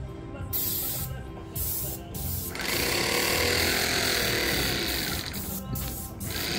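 Paint sprayer in use: a loud hiss from the spray gun that breaks off briefly several times as the trigger is released and comes back, over a rhythmic low pulsing from the sprayer's pump.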